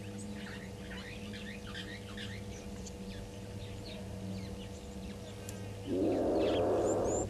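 Birds chirping over a steady low hum. About six seconds in, a loud rasping noise of about a second and a half from an unidentified source repeats one heard just before.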